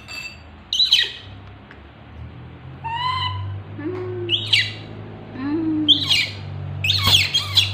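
Baby macaques screaming in a string of sharp, shrill cries that slide down in pitch, the loudest about a second in and a cluster near the end, with a few shorter, lower calls between.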